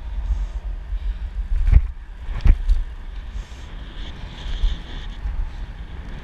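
Wind buffeting the microphone and a low rumble while riding a road bicycle over cracked asphalt. Two sharp knocks come a little under two seconds in and again about half a second later, as the bike jolts over the road cracks.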